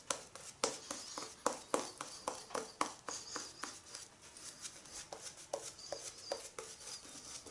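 RazoRock synthetic shaving brush working shaving-cream lather over a wet face: brisk wet brush strokes, about three a second, getting fainter in the second half. The lather has just been thinned with a little extra water.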